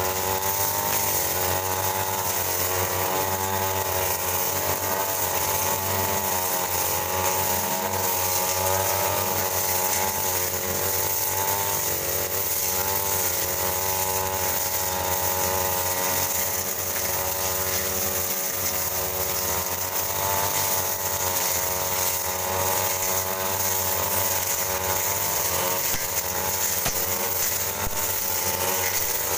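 Backpack brush cutter engine running at high revs, its pitch wavering up and down as the 41 cm metal blade swings through wet, swampy grass.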